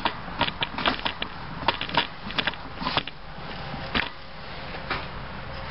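Irregular light clicks and knocks from handling a metal lathe tool rest as it is shifted closer to the wooden lamp blank. They come thickly for the first three seconds, then one sharper knock about four seconds in.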